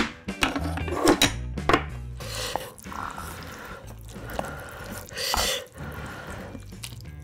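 A few knocks and clicks of a container and chopsticks against a table and pot. Then the soft wet sound of chopsticks stirring and lifting ramyun noodles in broth in an aluminium pot, with a breathy puff of blowing on the hot noodles about five seconds in.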